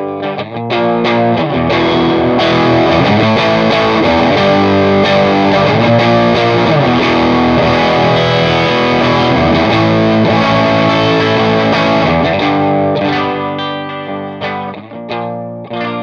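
Electric guitar played through a Tech 21 Double Drive overdrive pedal, distorted. Full chords ring out and sustain, then give way to sparser, quieter picked notes near the end.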